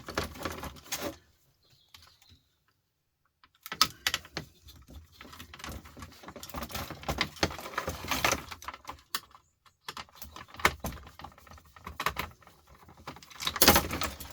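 Plastic casing being pried and broken off an appliance control board, with irregular clicks, cracks, scraping and rattling of tool and parts. There is a pause of a couple of seconds near the start, and the sharpest cracks come about four seconds in and near the end.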